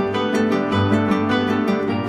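Background music on a plucked string instrument, with notes picked in a quick, even run over a steady bass.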